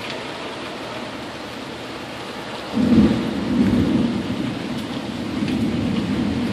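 Steady hiss of rain, then a loud rumble of thunder breaks in suddenly about three seconds in and keeps going, swelling twice.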